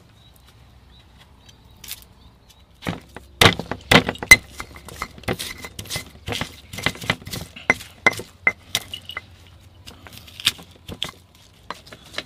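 Stone pestle pounding spices in a stone mortar: sharp knocks of stone on stone, about two or three a second and irregular, starting about three seconds in.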